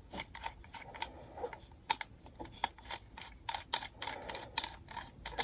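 Small plastic clicks and taps at an irregular pace, a few a second, as the parts of a plastic selfie-stick tripod are handled and tried.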